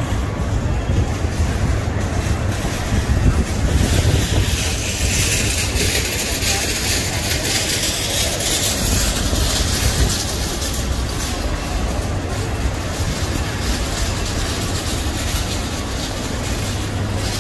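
Street traffic noise: a steady low engine rumble from trucks and other vehicles, under a constant hiss.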